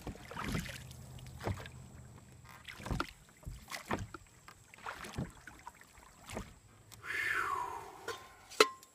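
Scattered hollow knocks and bumps against a canoe's hull as the paddler moves about and handles gear, with a brief swishing sound falling in pitch about seven seconds in and a sharp click just before the end.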